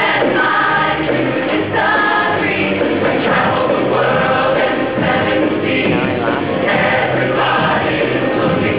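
High school show choir singing, many voices together.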